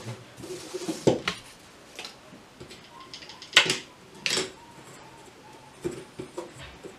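Wooden embroidery frame stand being handled: a string of short knocks and clicks from its wooden rails and fittings, the two loudest around the middle, with brief rustling.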